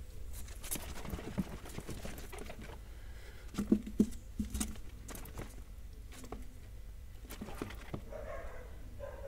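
Ten-day-old baby rabbits scrabbling and hopping on the bedding of a cardboard-box nest, with a hand rummaging among them: irregular light taps, scratches and rustles, with a few sharper knocks about four seconds in.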